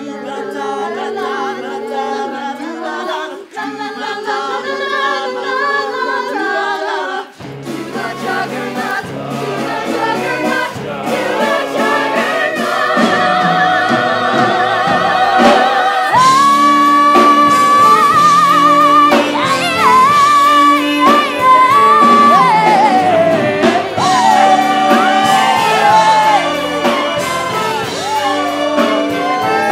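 Stage musical number: the cast sings in harmony, at first without bass. After several seconds the band comes in underneath and the music builds, with a high note held with vibrato near the middle.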